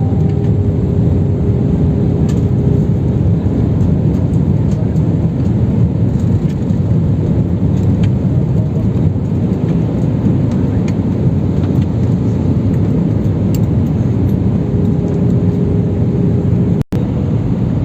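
Steady engine and airflow noise of an airliner heard inside the passenger cabin on final approach, low and even with a faint steady hum. It cuts out for an instant near the end.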